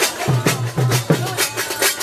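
Kavadi dance drumming: a fast run of sharp drum strokes over a low drum tone.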